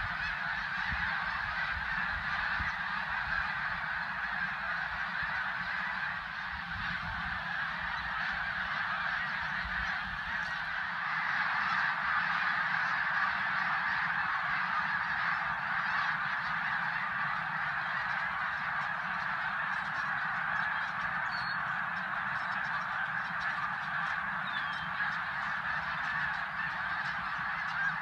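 A huge flock of snow geese calling all at once as it flies up and circles, a dense, unbroken din of honking that swells a little louder partway through. Wind rumbles on the microphone in the first several seconds.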